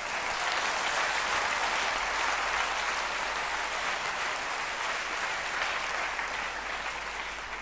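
A large audience in an auditorium applauding. The clapping swells in the first second, holds steady, and fades toward the end.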